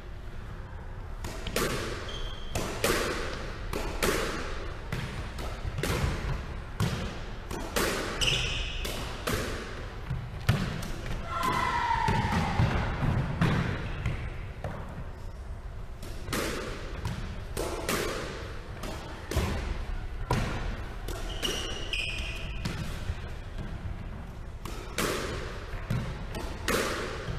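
A squash rally: the ball is cracked by the rackets and smacks off the court walls in an irregular series of sharp hits, with rubber-soled shoes squeaking briefly on the wooden floor a few times.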